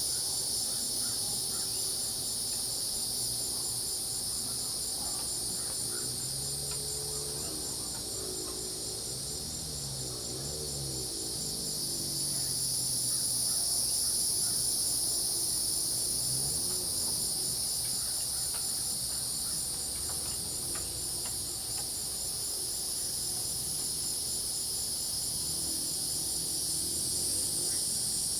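Insect chorus of crickets and cicadas: a steady high-pitched buzzing with a fast, even cricket trill through it. Lower wavering calls come and go underneath, from about six seconds in and again near the end.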